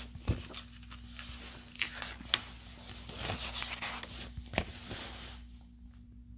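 Paper pages of a picture book being turned by hand: rustling, with several sharp snaps of paper. The rustling is thickest about three to five seconds in, then dies away.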